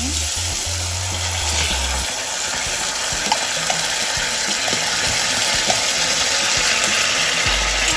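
Garlic, onion and tomato sizzling steadily in oil in a stainless pan as canned sardines in tomato sauce are poured in from the can. There are a few light clicks through the middle.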